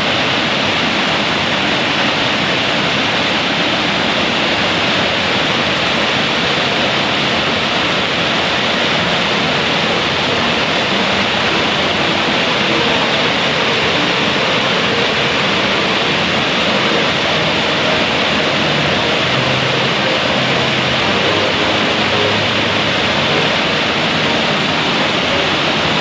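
Fast-flowing mountain river water rushing close by, a loud steady roar.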